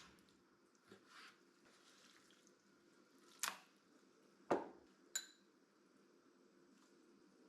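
Kitchen prep handling: a few soft, wet squishes, then three sharp knocks about a second apart, the last ringing briefly like a utensil or container against a bowl.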